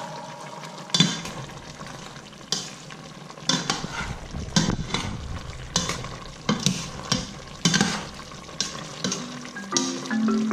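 Metal ladle stirring chunks of chicken and potato in a stainless steel pot of simmering adobo sauce, with irregular scrapes and clinks against the pot over a faint sizzle.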